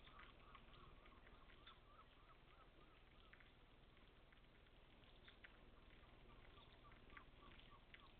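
Very faint outdoor ambience of light rain: scattered soft ticks of drops pattering, with a faint bird chirping in quick repeated notes, mostly in the first couple of seconds and again near the end.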